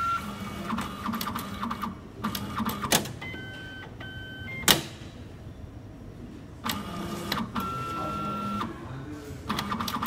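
Hitachi automatic passbook printer drawing a bank passbook in and positioning it: stop-start runs of motor whir and mechanical clicking, two short tones about three and a half seconds in, and a sharp clack just before five seconds.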